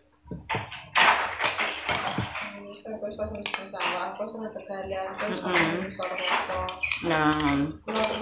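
Metal spoon clinking and scraping against a white soup bowl while eating from it, with many quick, sharp clinks. From about three seconds in, a low voice is heard under the clinking.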